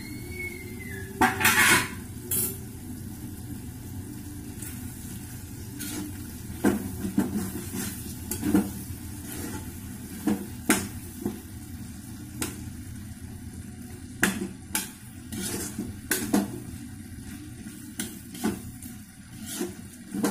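A steel lid clatters about a second and a half in, then a spoon stirs and scrapes a simmering vegetable curry in a steel kadhai, with irregular clinks against the pan over a steady sizzle.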